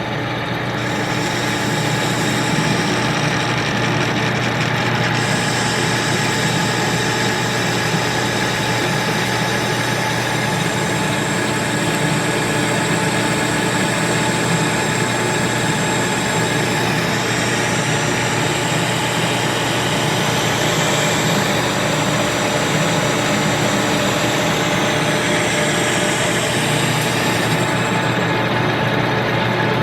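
Victor 1640 manual lathe running steadily, powered through a rotary phase converter that adds a steady low hum. A high whine comes in about a second in, shifts in pitch a few times, and stops near the end.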